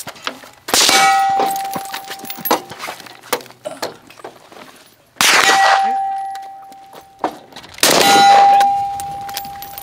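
Steel shooting targets hit by bullets, ringing with a clear tone three times, each ring fading over a second or two. Fainter sharp cracks fall in between.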